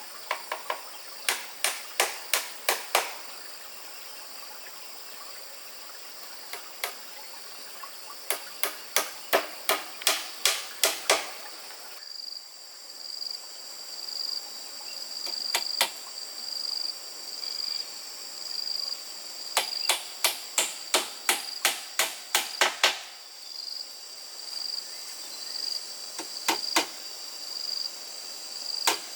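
Hammer driving nails into wood in quick runs of blows, several runs a few seconds apart. A steady high insect trill sounds behind it from about halfway through.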